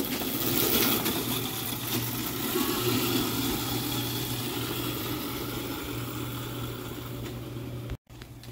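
Homemade electric go-kart with an alternator motor pulling away: a steady low electric hum with rough running noise, loudest about a second in and slowly fading as it drives off. The sound drops out for a moment near the end.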